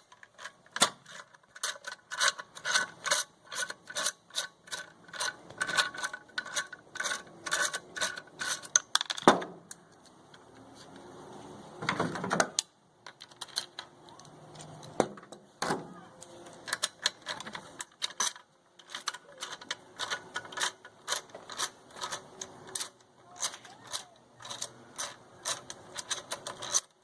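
Hand ratchet clicking in quick runs as bolts holding a generator's muffler are loosened, with a couple of louder metal knocks partway through.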